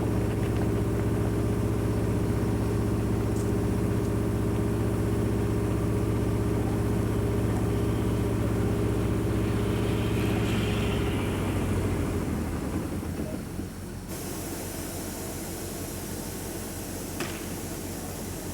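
An engine running steadily at idle, which dies away about twelve seconds in, leaving a lower steady hiss.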